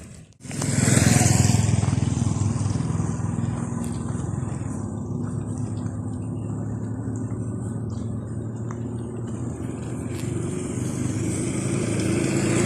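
A motor engine running steadily close by, starting suddenly about half a second in and loudest just after. It eases off a little through the middle and builds again near the end.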